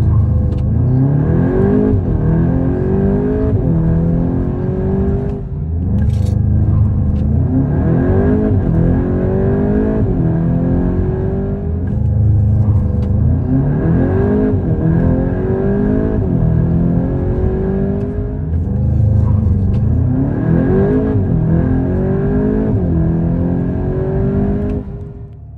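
2021 VW Golf 8 GTI's turbocharged 2.0-litre four-cylinder at full throttle from a standstill to about 100 km/h, heard from inside the cabin. The engine note climbs through each gear and drops back at each automatic upshift. Four such runs of about six seconds each follow back to back.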